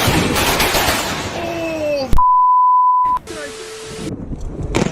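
A single high, steady beep lasting about a second, starting about two seconds in, with all other sound cut out while it plays: a censor bleep over a spoken word. Before and after it, a loud rushing noise from the storm recording.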